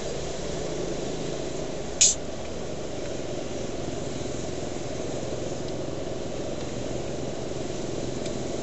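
Land Rover Discovery V8 driving along at low speed, heard inside the cabin: a steady low engine and road rumble. A brief sharp hiss cuts in once, about two seconds in.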